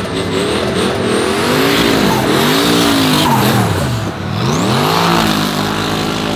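A drift car's engine revving hard and dropping again several times, its pitch rising and falling in repeated swings before settling near the end, over the hiss of tyres sliding on the wet track.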